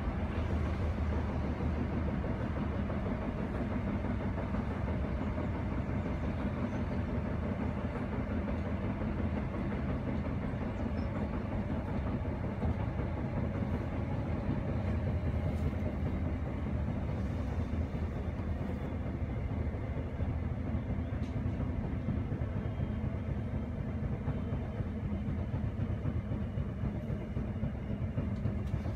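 Steady running noise inside the motor car of a Class 319 electric multiple unit under way: the low rumble of wheels on rail and the traction equipment.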